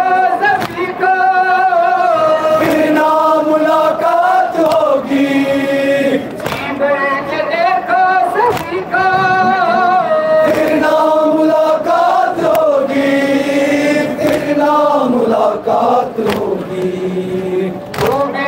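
Men's voices chanting a noha, a Muharram lament, in long, wavering held lines. Sharp slaps of hands striking chests break in every few seconds.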